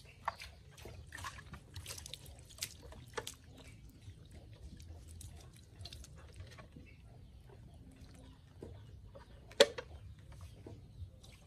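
Wet material being poured and tipped from a plastic bowl into the plastic beds of toy dump trucks, with scattered scraping and splashing at first and one sharp plastic knock about ten seconds in.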